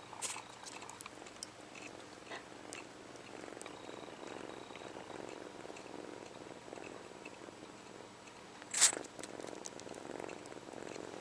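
Kitten purring steadily while comfort-sucking on his own paw, as a nursing kitten suckles, with small wet sucking clicks. A single sharp sneeze comes about three-quarters of the way through and is the loudest sound.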